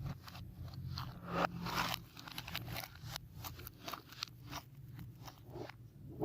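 Slime being squished and worked, giving an irregular run of crunchy crackles over a faint low hum.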